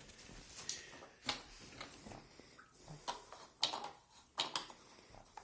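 A handful of sharp, separate clicks and knocks, a few seconds apart, as the bypass valve is handled and fitted onto the unit and its nuts are turned by hand.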